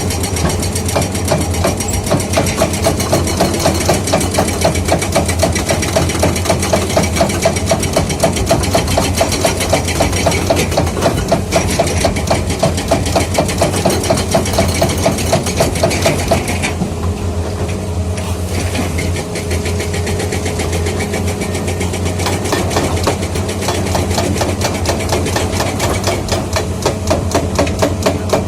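JTH hydraulic breaker on a Komatsu 210 excavator hammering with rapid, even blows over the excavator's running diesel engine. The hammering stops for about two seconds a little past the middle, leaving the engine, then starts again.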